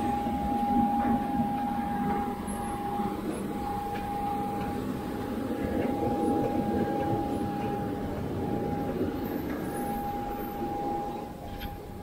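Steady whine and rumble of a parked jet airliner's machinery running on the ramp: one high tone held over a broad, even rumble.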